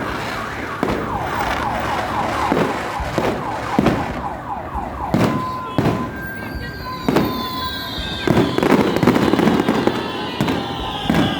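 Fireworks display: repeated sharp bangs of bursting shells, joined about halfway through by high whistles that slowly fall in pitch.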